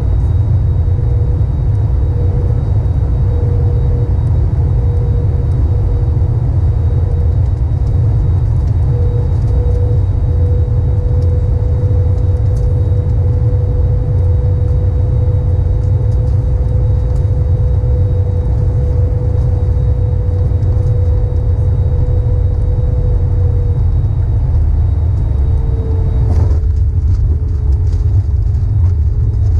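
Cabin noise of an Airbus A321neo on final approach: a loud, steady rumble of engines and airflow with a steady engine tone that drops a little a few seconds before the end as thrust comes back. Near the end, a sudden thump as the main wheels touch down on the runway.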